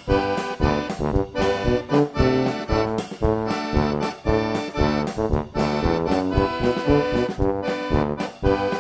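Instrumental background music with a quick, regular beat and chords changing throughout.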